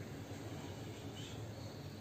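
Faint steady background noise with a low hum and hiss, and no distinct events.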